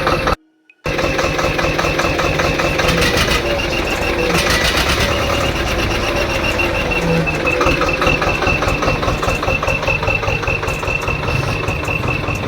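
Swaraj 724 XM Orchard tractor's diesel engine running steadily, its exhaust fitted with an aftermarket turbo whistle that gives a steady high whistle over the engine's firing. The sound cuts out briefly about half a second in.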